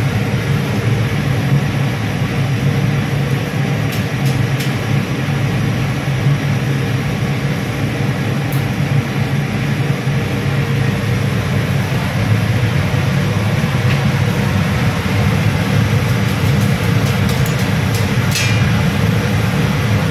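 Steady low machinery rumble and hum of an offshore galley's ventilation and plant, with a few light clinks of a fork against the steel noodle pot.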